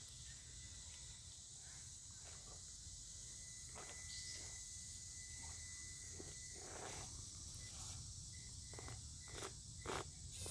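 Faint outdoor ambience: a steady high insect drone with a low rumble underneath, and scattered light clicks and knocks through the second half.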